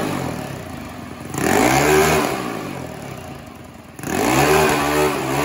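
Stage 4 Predator 212cc single-cylinder engine on a mini bike, blipped by the twist throttle. It revs up sharply and drops back toward idle about a second and a half in, and again about four seconds in.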